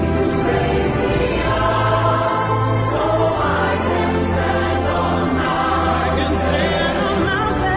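Choir singing a slow, hymn-like song over held low bass notes.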